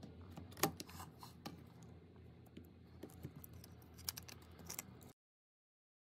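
Scattered light clicks and taps from fingers handling the parts of an opened smartphone, over a low steady hum. The sharpest click comes about half a second in, and the sound cuts off suddenly about five seconds in.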